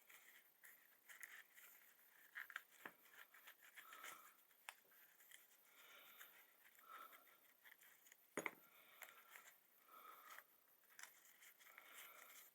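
Near silence with faint, scattered clicks and light scrapes of a leather knife sheath being handled, with a sharper double click about eight seconds in.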